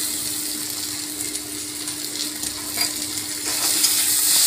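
Sliced potatoes and chopped onion sizzling in oil in a wok, stirred and scraped with a metal spatula. The scraping and sizzling grow louder near the end.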